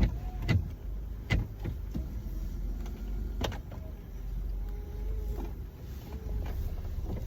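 Car interior while driving: a steady low rumble from the road and engine, with several sharp knocks or clicks in the first few seconds.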